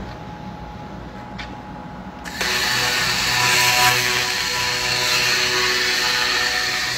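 Handheld 1500 W fiber laser cleaning head stripping caked rust off a steel air brake drum. After about two seconds of low hum, a loud hissing buzz starts suddenly, with several steady whining tones running through it.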